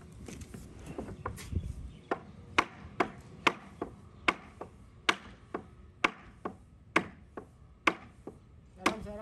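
Sharp knocks and clicks on WPC composite deck tiles as they are fitted together at a joint, about a dozen at an irregular pace of roughly two a second, starting about two seconds in.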